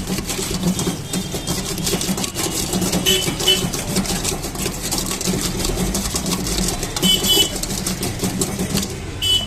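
Fast, continuous scraping and clattering over a steady low hum, with a few short high tones about three seconds in, seven seconds in and near the end.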